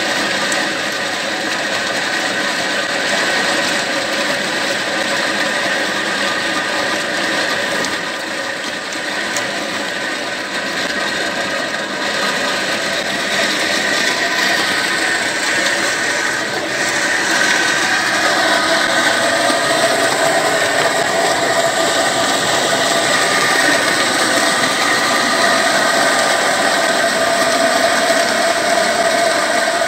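Old 25 HP diesel engine running and driving machines through flat belts and pulleys: a steady mechanical clatter and hum of the engine and spinning belt drive. About eighteen seconds in a steady hum joins and the whole gets a little louder.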